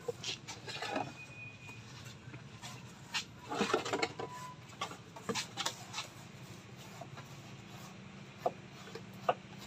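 Scattered light taps and clicks of a plastic jerrycan and a paint roller being handled on a fiberglass boat deck, with a brief squeak about a second in.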